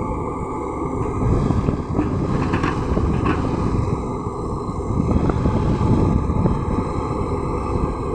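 LiuGong crawler excavator's diesel engine running steadily as the machine works its boom and bucket over a dump truck.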